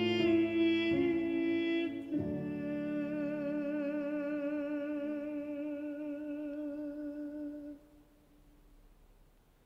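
Countertenor singing the closing phrase of an aria with piano accompaniment. It ends on a long held note with vibrato that dies away about eight seconds in, leaving near silence.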